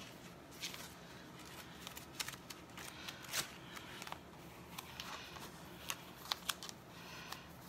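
A sticky plastic Chalk Couture silkscreen transfer sheet rustling and crackling as it is handled and laid flat onto a board, with scattered sharp crackles throughout.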